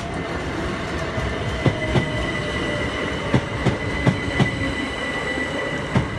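A Class 377 Electrostar electric multiple unit passes over the level crossing. Its wheels knock over the rail joints in pairs, under a continuous rumble and a steady high-pitched squeal.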